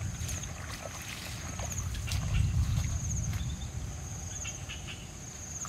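Outdoor field ambience: a steady high-pitched insect trill with a pulsed chirp about every second, over a low rumble that swells about halfway through, with scattered light rustles and ticks.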